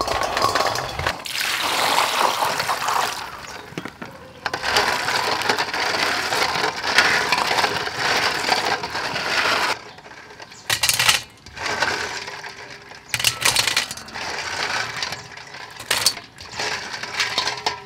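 Quail eggs in their shells clattering against each other and a stainless steel bowl as they are poured in and rubbed by hand while being washed. About halfway through, the continuous clatter gives way to several separate short rattles, like eggs being scooped into a metal colander.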